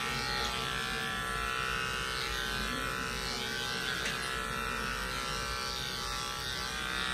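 Corded electric pet clippers running with a steady buzz as they shave a Persian cat's fur.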